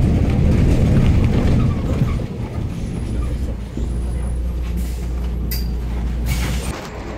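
Inside a Solaris Urbino 18 III articulated city bus: heavy engine and road rumble, settling into a steady low engine drone as the bus slows. A few short hisses of compressed air come near the end, the longest just before the drone drops away.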